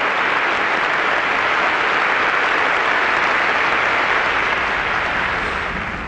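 Concert audience applauding steadily, easing off slightly near the end.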